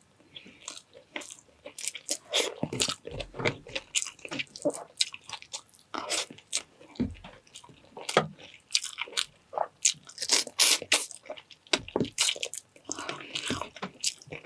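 A person eating close to the microphone: irregular crunching bites and wet chewing, with many short sharp clicks.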